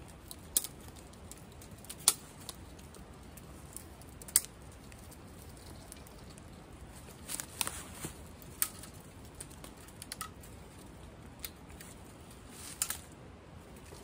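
Small dry twigs snapping by hand: a handful of sharp, separate cracks a second or more apart, with a quick cluster of three about halfway through.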